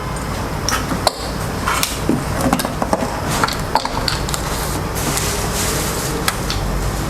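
Rustling and irregular clicks and knocks from a MIG welding torch and its cable being handled.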